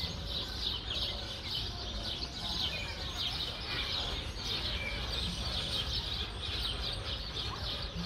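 Many small birds chirping at once in a dense, continuous chorus, over a steady low rumble.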